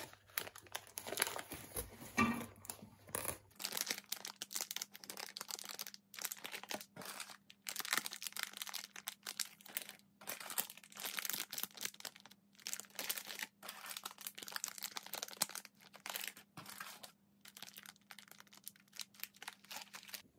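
Clear plastic wrappers on individually packed cookies crinkling in short, irregular bursts as the cookies are handled and lifted out of a cardboard box.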